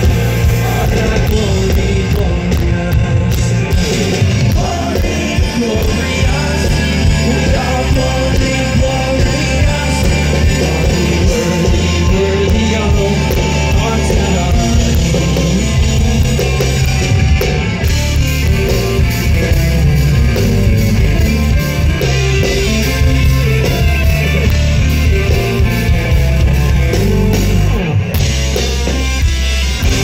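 Live rock band playing loud, with electric guitars and singing.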